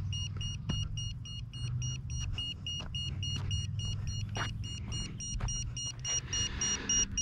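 Low-battery warning beeper on a Fly Wing 200 micro helicopter, beeping rapidly and repeatedly at a high pitch, a sign that the flight pack is low. Underneath there is a low steady hum, and light footsteps tap on asphalt about twice a second.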